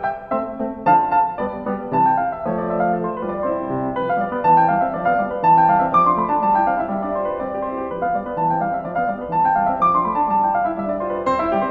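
Background solo piano music, with repeated falling runs of notes.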